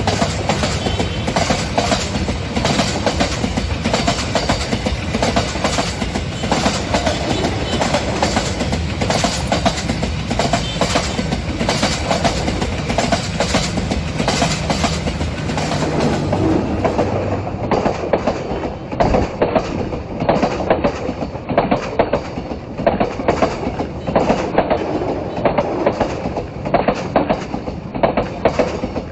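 Train rolling along the track, its wheels clattering over the rail joints in a continuous clickety-clack.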